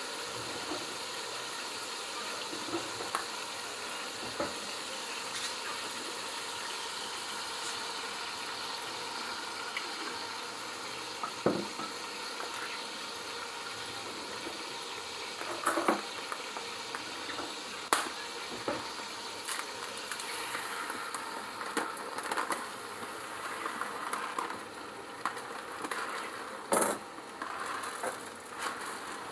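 Onion, tomato and bay leaves sizzling in olive oil in an aluminium pot, a steady hiss that softens about two-thirds of the way in as tomato passata goes in. A few sharp knocks and clatters against the pot, and near the end the rattle of rice being poured in.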